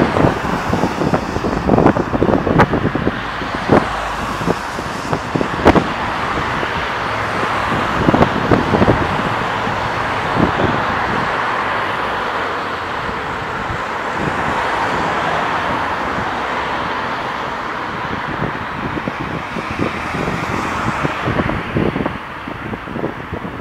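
Steady road traffic noise with wind on the microphone of a handheld iPod nano. Irregular thumps stand out in the first ten seconds or so.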